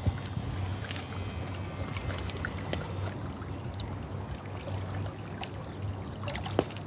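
Running water flowing steadily, with scattered small splashes and drips throughout.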